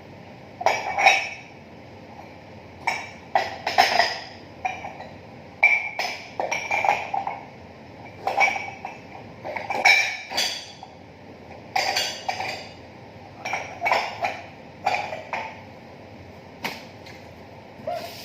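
Dishes clinking and knocking together as they are handled and stacked, in small clusters of sharp, ringing strikes every second or two.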